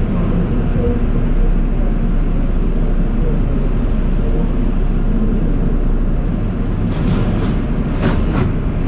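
Automatic car wash tunnel equipment running with a steady low rumble, joined by bursts of spraying hiss about seven and eight seconds in.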